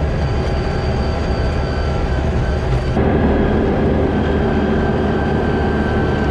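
A farm vehicle's engine running steadily and loudly, with a change in tone about three seconds in.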